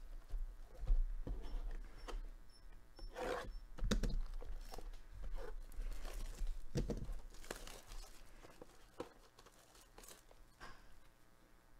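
Plastic shrink wrap being torn and crinkled off a cardboard trading-card booster box, with scattered clicks and taps from handling the box. The rustling is busiest in the first several seconds and thins out near the end.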